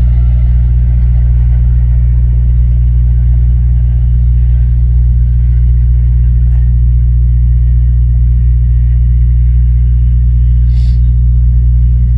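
Steady low rumble of a car driving at speed, with engine and road drone heard from inside the cabin.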